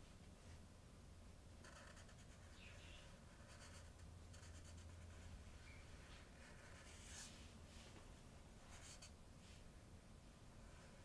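Faint, short strokes of a broad-tip marker drawn across flip-chart paper, a handful of separate scratchy strokes as the letters are formed.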